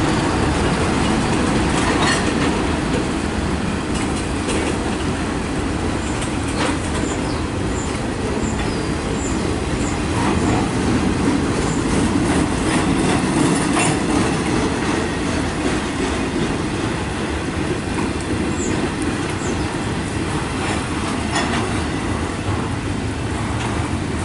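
Double-stack intermodal train's loaded well cars rolling past: a steady rumble of steel wheels on rail, with scattered clacks at rail joints and a few faint high wheel squeals.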